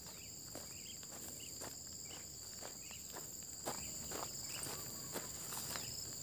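Footsteps on a dirt path, about two a second, under a steady high-pitched drone of insects.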